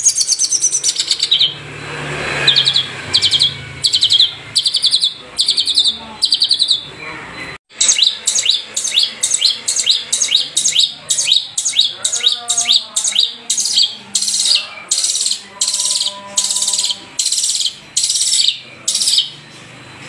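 Long-tailed shrike (Madura cendet) singing a fast run of short, high, buzzy trilled phrases, about two a second, broken once by a sudden brief cut about a third of the way through.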